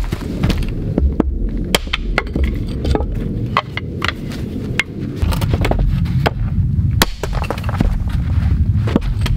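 Dry branches being handled, knocked and snapped over a wooden chopping stump: a string of sharp cracks and clatters, the sharpest about seven seconds in, over a steady low rumble.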